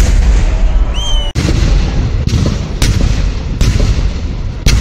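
Fireworks display: six sharp bangs of exploding fireworks shells, about one a second, over a continuous low rumble of further explosions. A short rising whistle comes just before the second bang.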